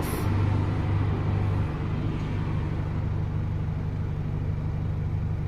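Steady low engine hum of a vehicle idling, a little louder for the first second and a half, with one short sharp click right at the start.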